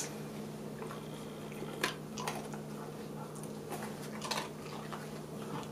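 A few faint clicks and taps over a steady low hum, from a nylon dog harness with plastic buckles being handled and slipped over a small dog's head.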